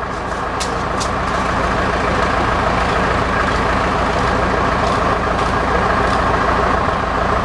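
A large engine running steadily, growing a little louder over the first couple of seconds, with a couple of sharp knocks in the first second.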